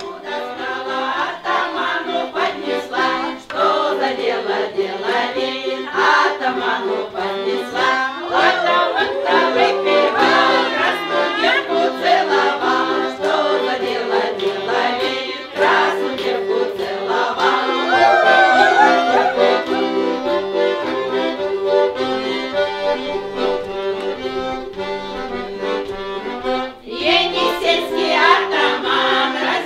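Accordion playing a lively folk tune with steady held chords, with women's voices singing along.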